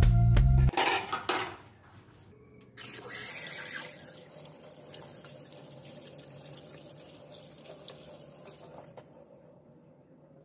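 Music ends just under a second in. Then a tap runs into a sink while fish are rinsed and cleaned by hand over a plastic basket, loudest about three seconds in and fading near the end.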